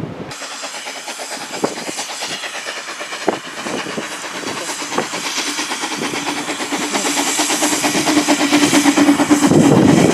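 Narrow-gauge steam locomotive and its coaches passing slowly close by: rapid clicking of wheels on the rails with a hiss of steam, growing louder as the train nears. A low steady hum builds over the last few seconds.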